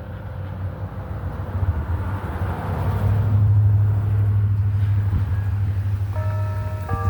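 A vehicle passing: a low rumble that swells to its loudest about halfway and eases off. The church bells start ringing a tune again near the end.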